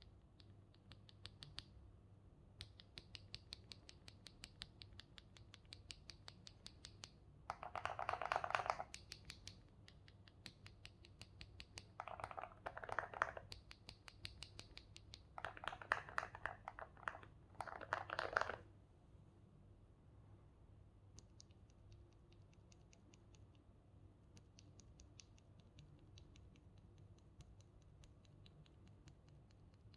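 Typing on a mechanical keyboard with lubed KTT Strawberry linear switches and SA-profile keycaps. It runs as a stream of light keystrokes, with three spells of faster, louder typing around the middle and lighter, quicker typing in the last third.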